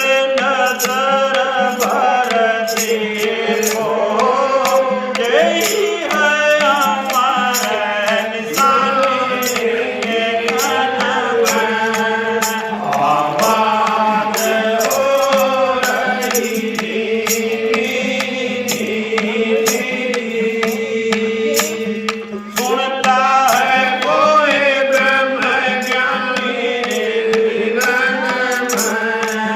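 Indian devotional bhajan music: a melody wandering over a steady held drone, with percussion strokes on a steady beat.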